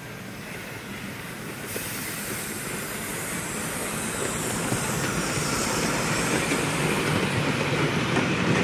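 Miniature steam locomotive hauling passenger coaches approaching along the track, the running noise of the train and its wheels on the rails growing steadily louder.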